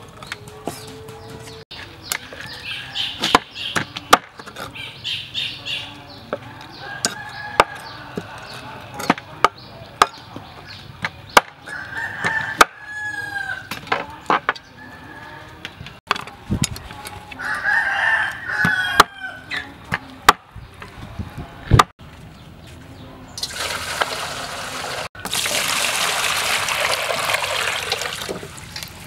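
Cleaver chopping frog meat on a wooden cutting board, a run of sharp irregular knocks, while chickens cluck and a rooster crows in the background. Near the end, water is poured into a plastic basin for about five seconds.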